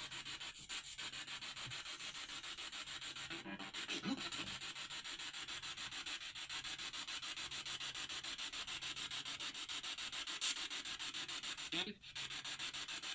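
Handheld ghost-hunting detector sounding its alarm without a break: a fast, even stream of scratchy pulses, several a second. The investigator reads the alarm as a presence near the device.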